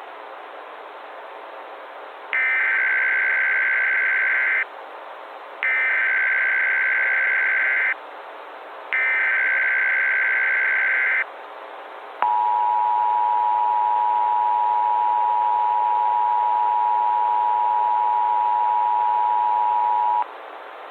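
Emergency Alert System header: three roughly two-second blasts of buzzy SAME digital data, then the steady eight-second two-tone EAS attention signal (853 and 960 Hz), over a constant radio-like hiss. The sequence signals the start of an emergency alert broadcast.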